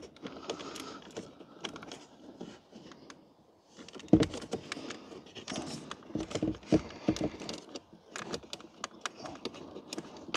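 Plastic clicks and rattles as hands work electrical connectors and the wiring harness loose inside a Hyundai Ioniq's door, with a sharp knock about four seconds in.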